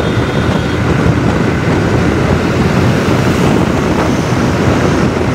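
Steady wind rush on the microphone of a moving sport motorcycle, with the bike's engine running underneath.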